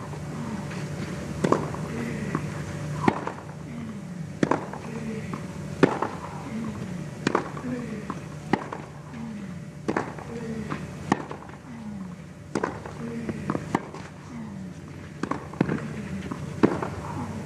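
A long tennis baseline rally on clay: rackets strike the ball about every second and a half, alternating between the two players, with short grunts on many of the shots.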